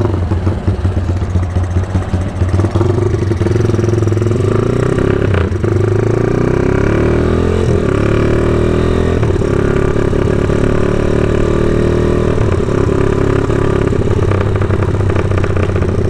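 Motorcycle engine running while riding, with rattling knocks over a rough road in the first few seconds. About seven seconds in the engine note rises, then holds steady.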